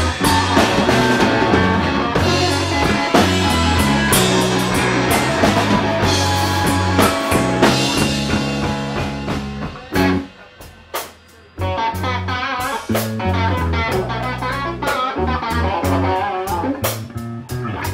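Blues band playing an instrumental passage with guitar over bass and drums, no singing. About ten seconds in the band drops nearly out for a second or two, with a few hits, then comes back in.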